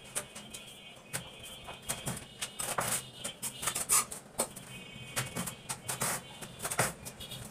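Irregular scraping and tapping of hand work against a door frame and the wall beside it, with birds chirping in the background.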